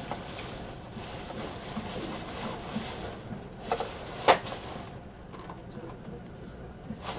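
Running noise heard inside the passenger cabin of a JR E657-series limited express train under way, a steady rumble with a high hiss. A short knock comes between three and four seconds in, then a sharp click a little later, the loudest sound.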